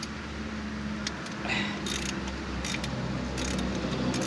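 Ratchet wrench clicking in short bursts, several times, as a 10 mm bolt on the AC compressor line bracket is worked loose.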